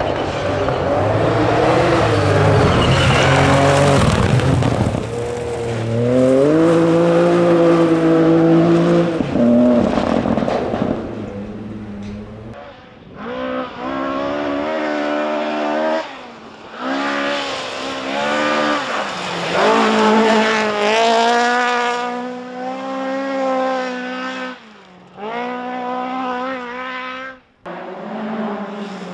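Rally cars driven hard on a loose gravel stage, one after another, including a Ford Fiesta and a Mk2 Ford Escort. Their engines rev up and drop back through gear changes over the hiss of tyres on gravel, and the sound cuts abruptly from one car to the next several times.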